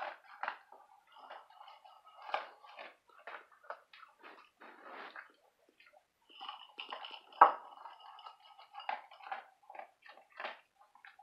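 A dog crunching and chewing dry kibble from a bowl, in irregular crunches with the loudest about seven seconds in.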